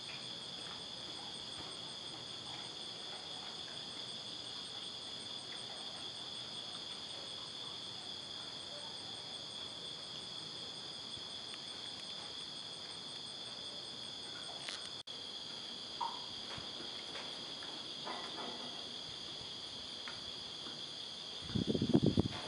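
Steady night chorus of insects, a continuous high trill with a faint fast pulsing above it. Near the end there is a brief cluster of low knocks, louder than the chorus.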